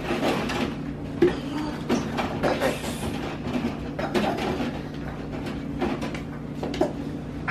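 Dishes and kitchenware knocking and clattering at a kitchen sink in irregular short knocks, over a steady low hum.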